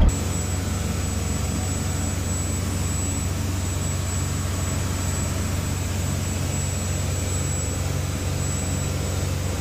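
Charter fishing boat's engines running steadily at cruising speed as the boat heads back to the dock, a constant low drone with a thin steady high whine on top.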